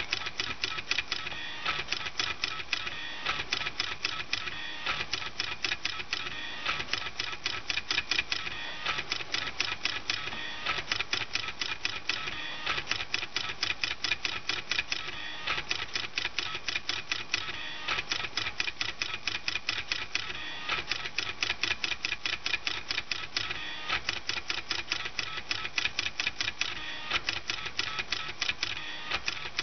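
Homemade pen plotter at work: the stepper motors in its two CD-drive carriage assemblies and its motor-driven pen lift click and buzz in rapid, even runs as the marker dots the image onto the paper. The clicking goes on without a break in rhythm, with small pauses now and then.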